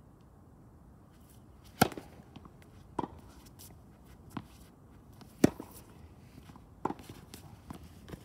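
Tennis rally: a string of sharp pops from the ball being struck by rackets and bouncing on the court, about one every second or so, starting a couple of seconds in.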